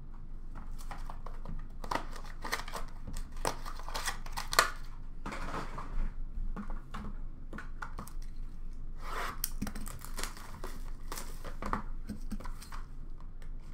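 Cardboard card-box packaging and plastic wrappers being handled and torn open: irregular crinkling, tearing and rustling with scattered sharp clicks.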